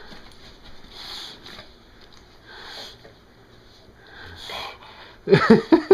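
Olde English bulldog breathing hard with sniffs every second or so, then a quick run of loud snorts near the end.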